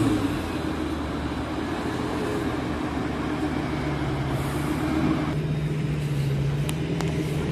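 Exhaust of a BMW M4's twin-turbo straight-six and a Lamborghini Gallardo's V10 pulling away slowly. The Gallardo's V10 note becomes steady and stronger from about four seconds in as it rolls past close by.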